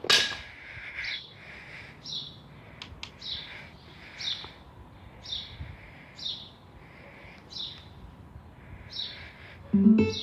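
A bird's short falling chirp, repeated about once a second. A loud sudden sound comes at the start and another just before the end.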